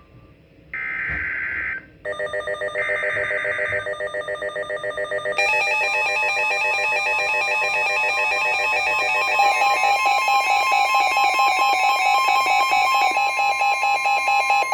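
NOAA Weather Radio Emergency Alert System alert: two short, harsh, buzzy SAME digital header bursts, then a weather radio's electronic alarm tone pulsing about five times a second. The alarm grows denser about five seconds in, and a steady warning tone joins about a second later, signalling an incoming severe thunderstorm warning.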